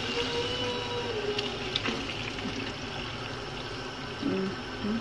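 Bulgur pilaf in tomato paste and hot water simmering in a pan on a gas stove: a steady bubbling hiss, with a wooden spoon stirring through it at first.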